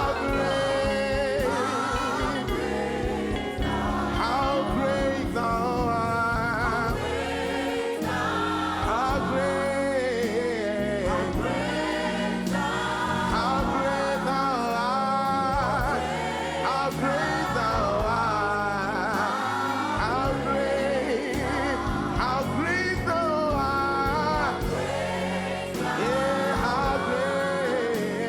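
Gospel worship music: voices singing long, gliding lines over steady instrumental backing.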